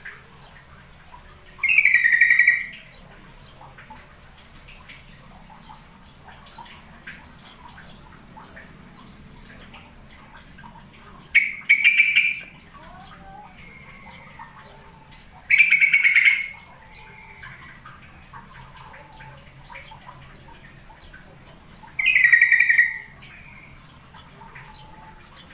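Yellow-vented bulbul (trucukan) calling: four short, fast chattering phrases, each about a second long, spaced several seconds apart.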